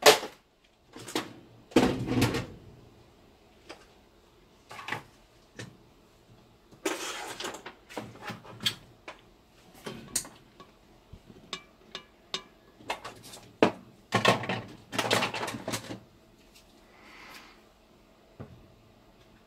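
Tools and parts being moved aside on a workbench: an uneven run of knocks, clacks and sliding scrapes, the sharpest knock right at the start.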